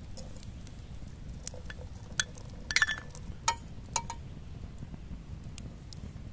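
Brass spoon clinking against a small copper pot and a metal bowl as raisins are spooned into the liquid and stirred: a handful of sharp, ringing clinks, bunched between about two and four seconds in.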